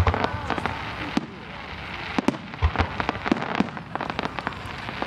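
Fireworks going off: an irregular string of sharp bangs, pops and crackles, with a few heavier thumps near the start and again before the middle.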